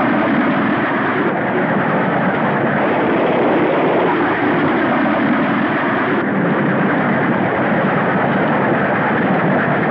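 Steam train running at speed: a loud, steady rushing rumble of the locomotive and carriages on the rails, with slow swells.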